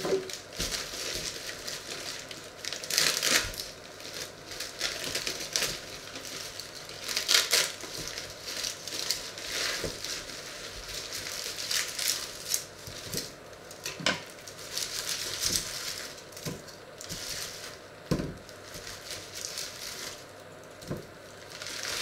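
Crinkling and rustling of a plastic bag of onions being handled and cut open with a knife, with a few sharp knocks as onions are set down on a wooden cutting board.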